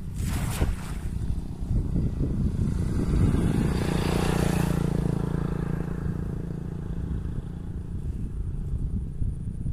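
A cast net is thrown and lands in water with a brief splash about half a second in, over a steady low rumble. A small engine hum swells around four to five seconds in and then fades.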